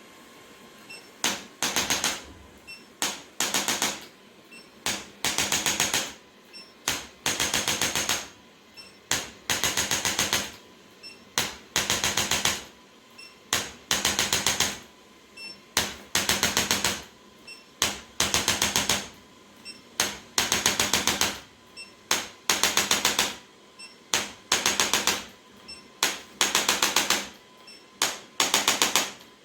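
Handheld chiropractic adjusting instrument firing short bursts of rapid clicks, about one burst every second or so, as it is worked over the patient's back.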